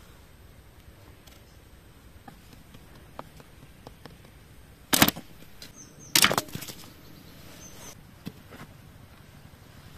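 Bamboo poles and sticks knocking together: a sharp double wooden clack about five seconds in, a burst of clacks about a second later, and lighter taps around them.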